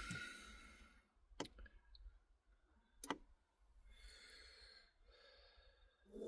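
Two sharp clicks about a second and a half apart in near silence. Near the end, a campervan diesel heater starts up with a steady hum.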